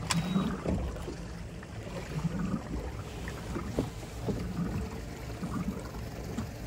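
Water lapping and slapping against the hulls of small fibreglass open boats drifting side by side on calm sea, over an uneven low rumble, with a few soft knocks.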